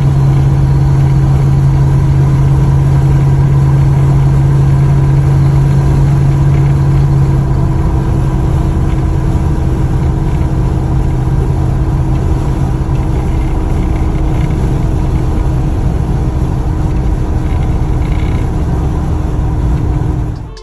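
Car driving at a steady speed: a steady engine drone over road rumble, the deepest part of the drone easing about seven seconds in.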